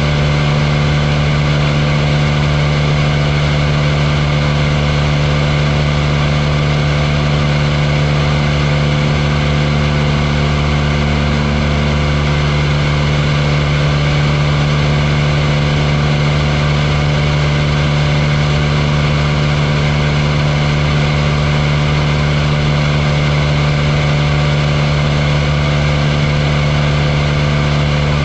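Light aircraft's piston engine and propeller running under power with a steady drone, holding one pitch throughout.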